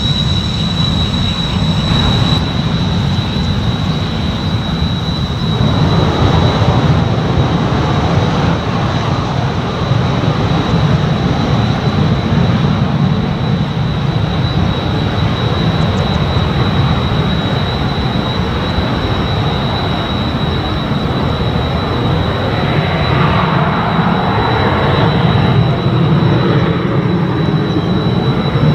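Kawasaki T-4 jet trainers' turbofan engines running with a steady high whine over a deep rumble. The noise grows about six seconds in and swells as a jet takes off near the end.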